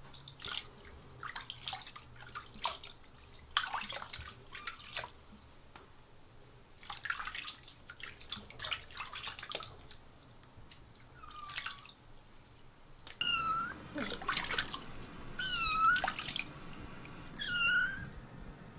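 Small splashes of soapy water in a bathroom sink as a young kitten is washed by hand, then the kitten mewing, three short high calls about two seconds apart in the last third.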